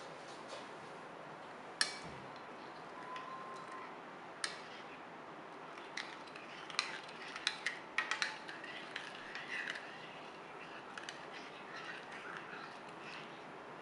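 Metal spoon stirring liquid in a ceramic bowl, with scattered light clinks of the spoon against the bowl and several close together about seven to eight seconds in.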